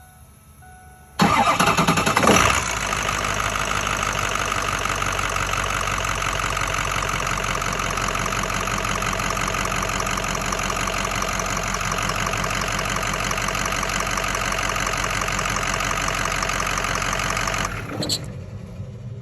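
Ford 6.0 Powerstroke V8 turbo-diesel cranks about a second in, catches within a second or two and settles into a steady idle, then is shut off near the end. It starts now that the fuse-box relay, which the owner thinks controls the injectors, has been replaced.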